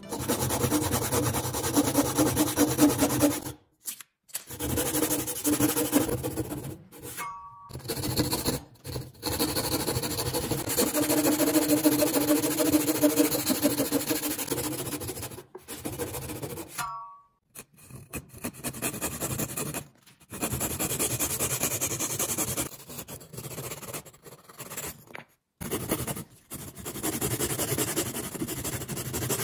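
Fine-toothed backsaw rasping through wood in repeated back-and-forth strokes, cutting down into the end grain of a clamped block and then crosscutting a second piece near the end. The sawing stops for several short silences and resumes each time.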